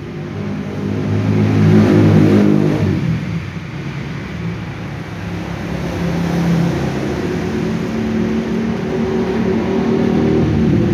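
Motor vehicle engines going past: one swells to its loudest about two seconds in and fades a second later, then more engine noise builds again and stays loud towards the end.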